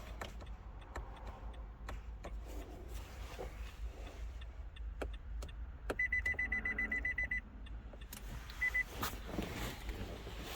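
Faint clicks, then about six seconds in a rapid run of high-pitched electronic beeps lasting about a second and a half, and one short beep a little later. They come as the ignition is switched on with the start button during smart-key programming.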